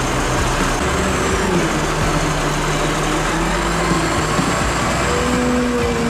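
A large engine running steadily, with a couple of steady higher tones coming in about five seconds in.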